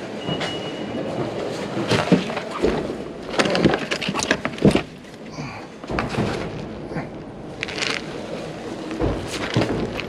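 Luggage being loaded into a car's open boot: a backpack and plastic-wrapped bags rustling, with irregular knocks and thuds as they go in against the trunk.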